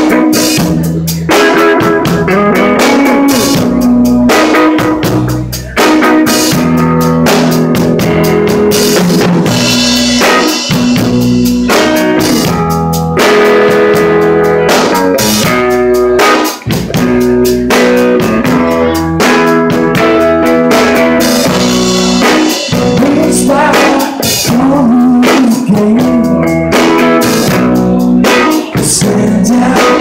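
Live band playing loud: an electric guitar on a Les Paul-style sunburst guitar over a Pearl drum kit keeping a steady beat.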